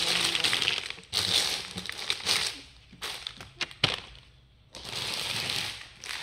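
Plastic snack wrappers crinkling and rustling as bags are handled and packed into wicker baskets, in several stretches, with a few sharp clicks in a short lull past the middle.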